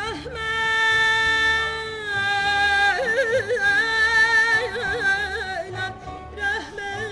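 Female opera singer singing in Azerbaijani mugham opera style. She holds one long steady note for about two seconds, then moves into a lower melismatic line with rapid trill-like mugham ornaments.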